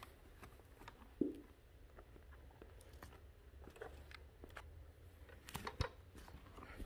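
French bulldog puppy scrambling on a fabric couch and mouthing a plastic toy bulldozer: quiet rustling, one dull thump about a second in, and a few sharp clicks near the end.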